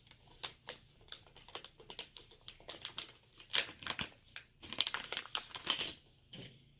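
Plastic packaging crinkling and crackling in the hands, in irregular runs of crackles that grow louder and denser about halfway through.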